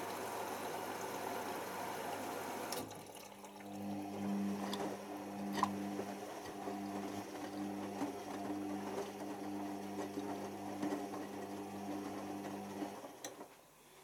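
Beko WMA510 front-loading washing machine in its pre-wash. The hiss of water filling through the inlet valve stops with a click about three seconds in. Then the drum motor hums steadily as it turns the drum, with scattered knocks from the tumbling load, and winds down near the end.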